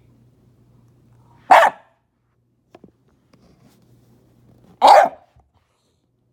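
A dog barking twice: two single sharp barks about three and a half seconds apart.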